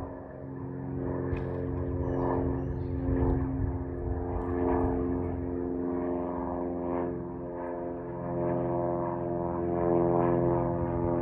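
Cessna 182R Skylane's six-cylinder Continental O-470 engine and propeller droning steadily as the plane climbs out overhead after takeoff.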